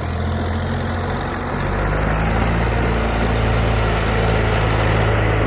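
John Deere backhoe's diesel engine running steadily, getting louder about one and a half seconds in.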